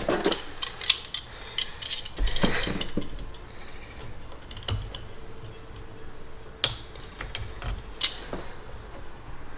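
Scattered clicks, knocks and rattles of hand work refitting a brake booster tube in an engine bay. There are two sharp snaps about two thirds of the way through.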